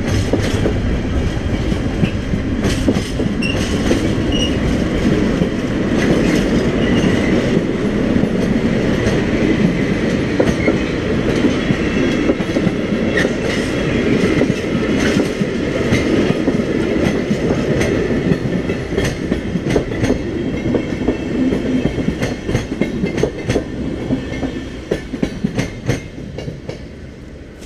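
Freight train rolling past close by, its wagon wheels clattering over the rail joints in a steady clickety-clack over a heavy rumble. The sound fades away over the last few seconds.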